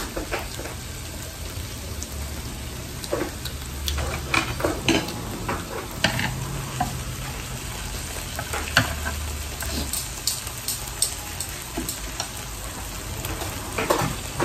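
Beef rolls wrapped around enoki mushrooms sizzling on a tabletop grill plate, with scattered sharp clicks of chopsticks turning and lifting pieces on the plate.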